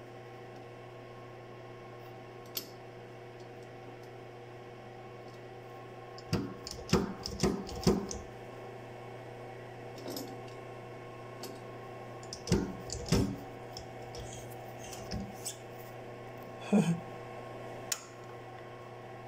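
Keyway being cut in mild steel by a sharpened high-speed-steel bit on a boring bar, driven up and down by hand through a milling machine's quill. It gives bunches of short scraping clicks about a third of the way in, again about two-thirds in, and twice near the end, over a steady low hum.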